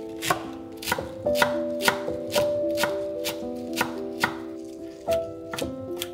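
Chef's knife chopping fresh cilantro on a wooden cutting board: a series of sharp knocks of the blade on the board, irregularly spaced at roughly two a second. Background music with sustained notes plays under it.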